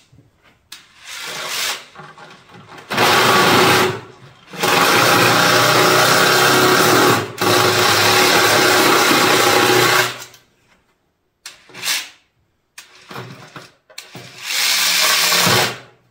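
Cordless reciprocating saw cutting through the ribs of a plastic five-gallon bucket in several runs: a short one about a second in, long runs from about three to ten seconds in, and another near the end, with a few short knocks between them.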